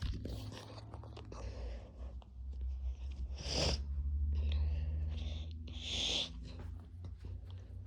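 Close rustling and crinkling handling noises, with two short hissing bursts, over a steady low hum.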